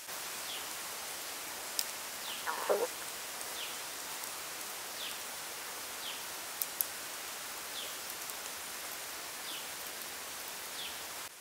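Outdoor forest ambience: a steady hiss with a bird's short falling chirp repeated about every second or so, and one lower, longer falling call about two and a half seconds in.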